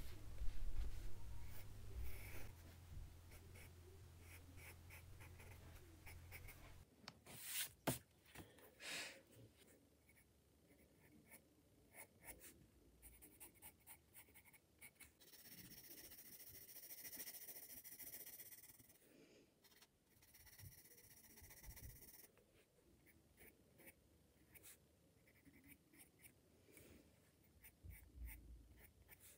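Faint scratching of a graphite pencil on sketchbook paper, in many short strokes, with a longer stretch of continuous shading strokes around the middle.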